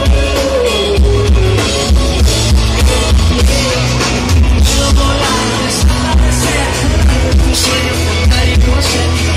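Live pop-rock band playing over a large outdoor PA: a singer over a steady drumbeat and heavy bass, loud and filling the sound.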